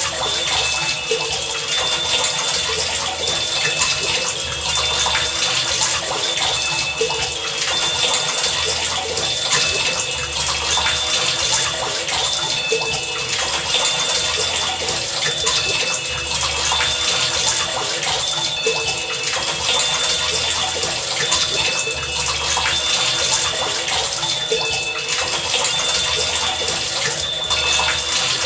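Heavy rain falling steadily. Under it, a low hum pulses on and off about every one and a half seconds, and faint high tones repeat over the rain.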